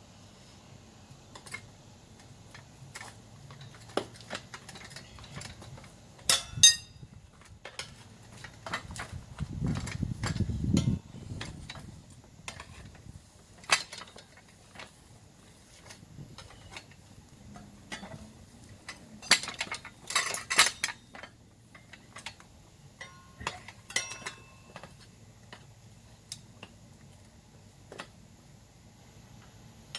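Metal hand tools clinking and clanking irregularly while a motorcycle tyre is being changed, with louder metallic clanks about six seconds in and again around twenty seconds in, and a low rubbery rumble around ten seconds in.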